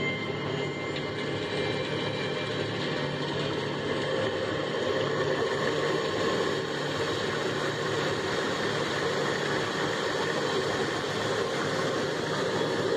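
Steady rumble and rushing noise inside a theme-park submarine cabin during its simulated dive, with no distinct events.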